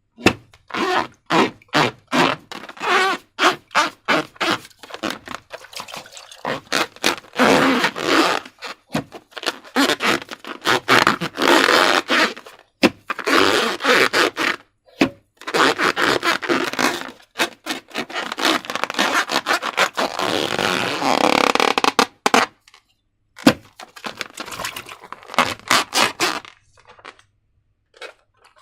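Hand-handling noise from slime-making materials: a busy, irregular run of short scraping and crackling noises with a few longer stretches, dying away near the end.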